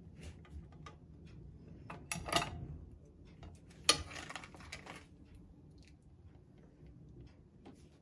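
Metal kitchen tongs clicking and crab legs knocking against a pan and a plate as they are lifted out of hot water, with two louder knocks about two and four seconds in.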